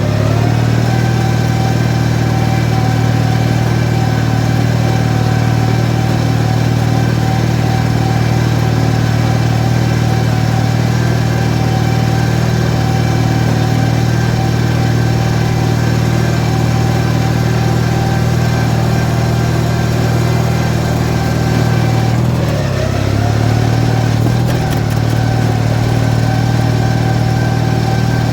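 18 hp Briggs & Stratton twin-cylinder engine of a modified Craftsman riding mower running steadily at speed. About 22 seconds in the revs dip briefly and then pick back up.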